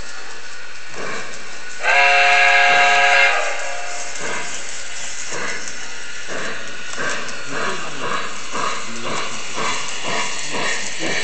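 O scale model steam locomotive's onboard sound system: a steady steam hiss, then a chime steam whistle blown for about a second and a half about two seconds in, then chuffing that starts slow and quickens as the locomotive gets under way.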